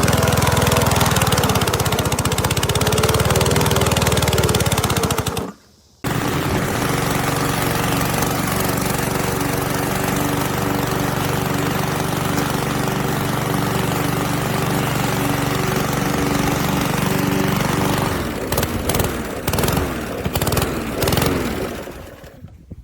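Single-cylinder 144cc OHV engine of a gas walk-behind lawn mower running steadily. The sound breaks off for about half a second about five seconds in, then runs on. From about 18 seconds it turns uneven, then fades out near the end.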